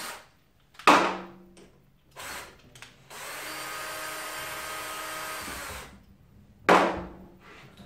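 Cordless drill-driver undoing fasteners on the tacho drive of a Honda CBX engine: a loud short burst about a second in, a brief one near two seconds, a steady run of about three seconds from about three seconds in, and another loud short burst near the end.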